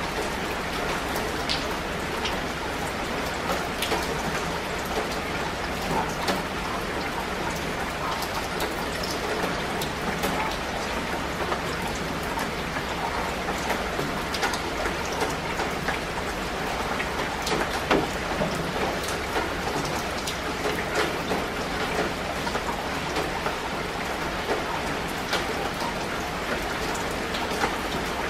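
Steady rain falling: an even hiss with many separate drops striking close by at irregular moments.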